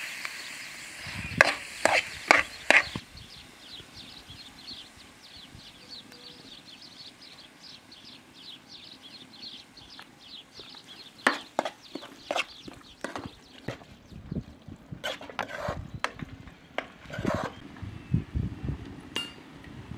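Metal spoon scraping and clinking against a metal pan as a thick walnut and herb filling is stirred, with a few sharper knocks about a second and a half in and more from about halfway on.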